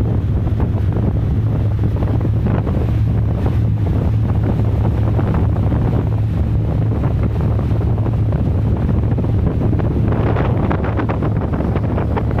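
Wind buffeting the microphone over the steady low drone of a fast passenger ferry's engines and the rush of water. The rushing grows louder about ten seconds in.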